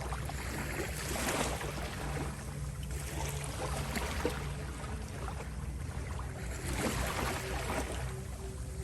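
Ocean waves washing in and out, swelling every few seconds, over a steady low humming tone.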